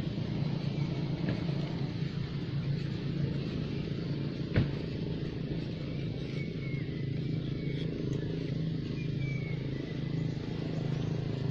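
A steady low engine hum, like a motorcycle idling, runs throughout. A single sharp click comes about four and a half seconds in, and a few faint, short high chirps sound over the hum.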